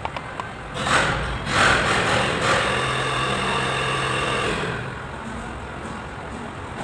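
An engine running, growing louder about a second in and falling away about five seconds in.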